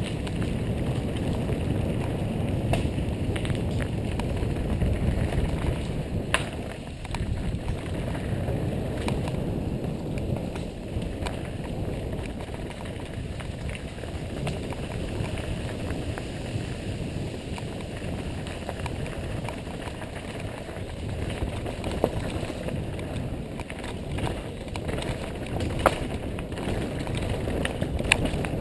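Downhill mountain bike riding a dirt trail: a steady rumble of tyres and wind on the microphone, with scattered sharp clicks and rattles from the bike.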